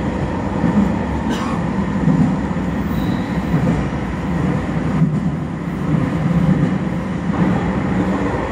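Electric commuter train running at speed, heard from inside the passenger car: a steady low rumble of wheels on rail.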